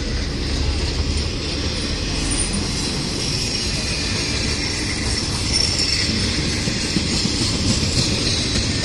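Empty intermodal freight cars rolling slowly past on the rails: a steady rumble of wheels on track with a faint high-pitched squeal that grows a little stronger about halfway through.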